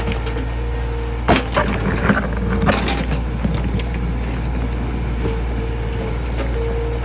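Kubota KH-033 mini excavator running steadily with a steady whine over it, and a handful of sharp cracks and knocks in the first three seconds or so.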